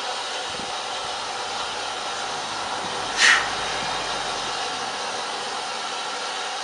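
Steady hiss of steam escaping from a standing steam locomotive, with one brief, much louder burst of hiss about three seconds in.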